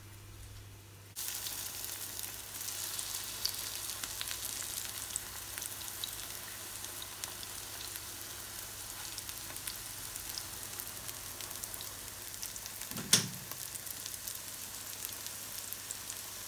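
Batter-coated courgette flowers sizzling in hot oil in a frying pan, with scattered pops and crackles. The sizzling starts abruptly about a second in, and there is one sharp knock late on.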